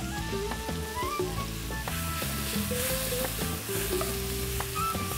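Chicken strips, bell peppers and pak choy sizzling in a hot wok as they are stir-fried and tossed. Background music plays underneath.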